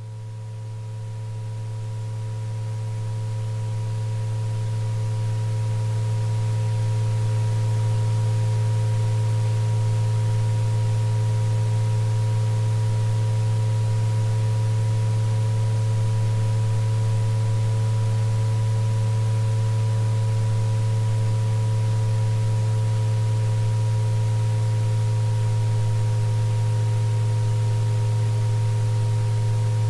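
Synthesized sound-therapy drone of steady pure tones: a loud low hum with fainter higher tones, two of them close in pitch and slowly drifting, over a soft hiss. It fades in over the first several seconds, then holds steady.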